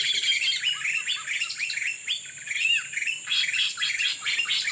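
Rapid, overlapping chirping bird calls, several a second, with short sharp notes and quick downward sweeps.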